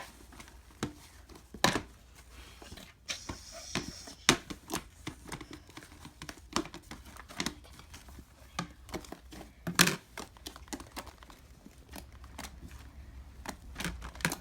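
Slime being squeezed and poked by hand: irregular crackly pops and clicks, with a louder pop about ten seconds in.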